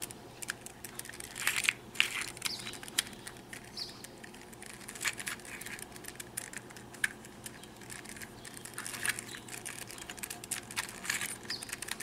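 Plastic clicking and clacking of an Evil Twin puzzle, two fused 24 mm 2x2 cubes with 3D-printed extensions, as its layers are turned by hand, in quick irregular clicks.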